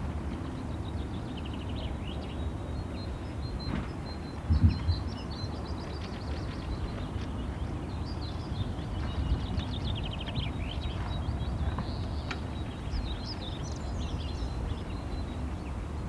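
Several small birds chirping and trilling over a steady low rumble, with one low thump about four and a half seconds in.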